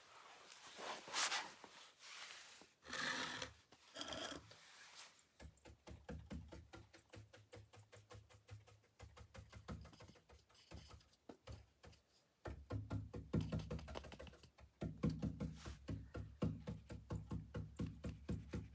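A paintbrush swishes across a painted wooden chest panel a few times, then pounces against it in fast, even taps, stippling and blending the paint. The tapping gets louder about two-thirds of the way through.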